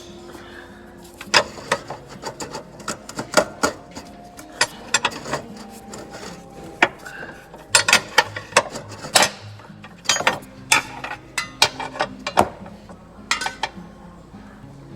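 Hand tools clicking and clanking on metal while working on a car's steering rack assembly: sharp knocks and ratchet-like clicks at an uneven pace, some in quick runs.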